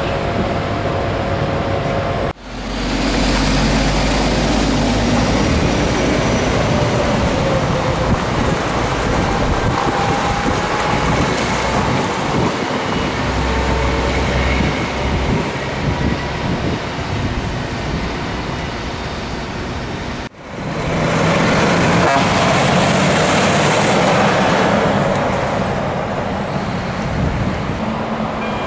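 Scania trucks driving on the road: the diesel engine running with tyre and traffic noise. The sound breaks off sharply and resumes twice, about two seconds in and about twenty seconds in.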